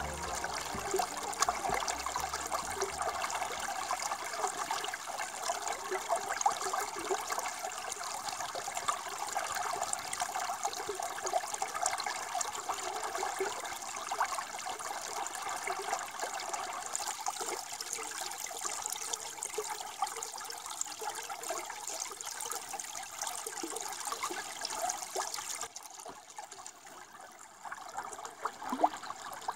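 Shallow creek water running and splashing over rocks, a steady rushing noise that turns quieter near the end.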